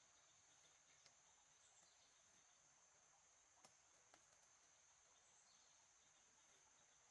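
Near silence: a faint, steady, high insect drone, with a few faint clicks.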